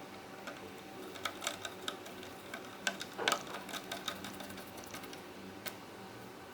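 Scattered light clicks and taps of small hard parts and tools being handled, in loose clusters, over a faint steady hum.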